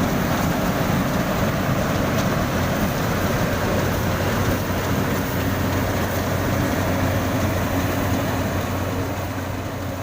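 Yanmar YH850 combine harvester's diesel engine running steadily, a loud constant drone.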